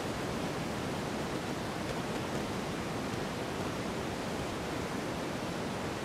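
Steady wind, an even rushing noise with no pauses or gusts.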